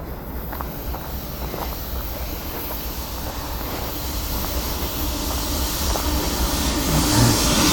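Coal train approaching on the main line, its rumble and rail noise growing steadily louder.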